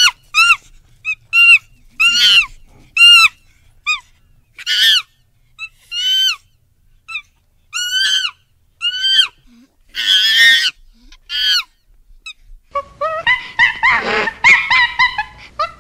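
Monkey calls: a string of short, high-pitched calls, each rising then falling in pitch, roughly one a second, with one harsher, noisier call about ten seconds in. Near the end the calls become dense, rapid chattering.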